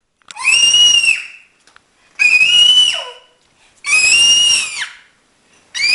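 Baby shrieking at a very high, whistle-like pitch: three loud shrieks of about a second each, each held steady then dropping at the end, with a fourth beginning near the end.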